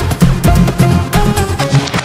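Background music with a steady beat, heavy bass and a melody that steps from note to note.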